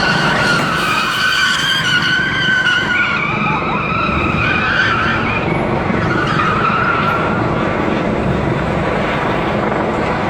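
Car tyres screeching as a Holden Commodore spins doughnuts: a wavering squeal that rises and falls, strongest in the first five seconds and returning briefly about six seconds in, over steady low rumbling.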